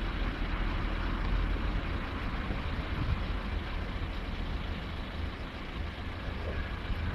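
Steady low rumble of idling road vehicles, with no clear tones or sudden sounds.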